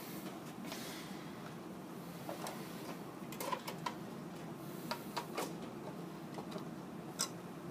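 Light clicks and taps from handling an HO scale model turntable bridge as it is fitted back over its pit: a handful of scattered small knocks, the clearest around the middle and one near the end, over a low steady hum.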